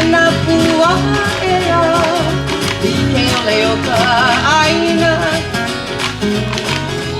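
Background music with guitar and a singing voice over a steady beat.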